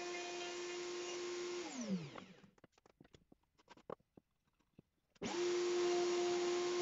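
Table-mounted router running at a steady pitch together with its dust extraction, switched off about one and a half seconds in and spinning down in a falling whine. A few light knocks follow as the cut plywood circle is lifted off the pivot pin and a new blank is set on; then the router starts abruptly and runs steadily again.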